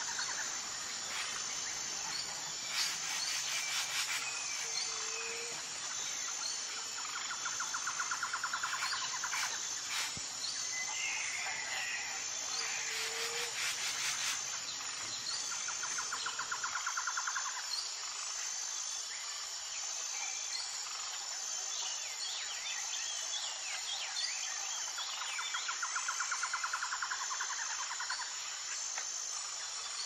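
Rainforest insects and birds: a steady high-pitched insect buzz, a rapid pulsing trill that comes back every several seconds, and a few scattered bird calls.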